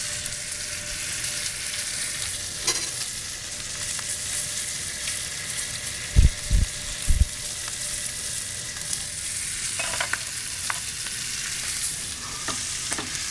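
Fat cap of New York strip steaks sizzling and crackling in hot fat in a stainless steel pan, the steaks stood on their fat side so it renders and crisps. Three low thumps come about six to seven seconds in.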